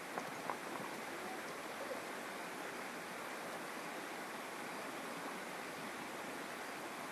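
Steady rushing of a shallow river flowing over rocks. A couple of light knocks near the start as stones are shifted by hand.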